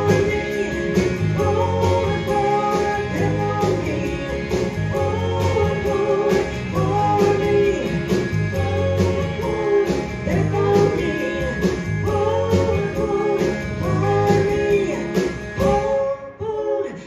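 Live country-rock band playing, with a woman singing over electric guitar, bass guitar, drums and pedal steel guitar. The song ends abruptly near the end.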